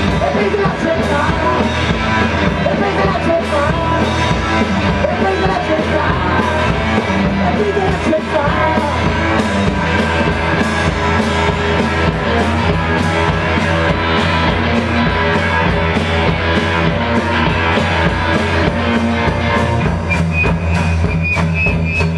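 A rock band playing live: two electric guitars, bass guitar and drum kit, driven by a steady beat of drum and cymbal hits.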